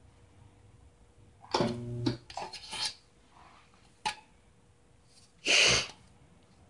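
Homemade spot welder firing through clamp probes on thin metal: a short buzzing hum with crackle about a second and a half in, then scratchy crackles, a sharp click around four seconds, and a hissing burst of about half a second near the end, the loudest sound.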